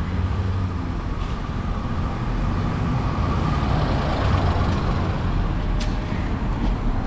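Road traffic on a city street: the steady low engine rumble of passing vehicles, heavy ones among them, swelling into a hiss of noise about halfway through, with a few short clicks near the end.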